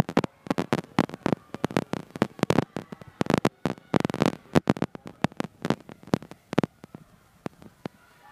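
Rapid, uneven sharp claps from spectators cheering on racing swimmers, several a second, thinning out near the end.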